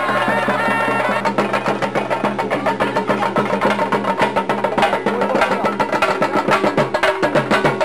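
Chenda drums played in a fast, steady rhythm as theyyam accompaniment, with rapid, dense strokes.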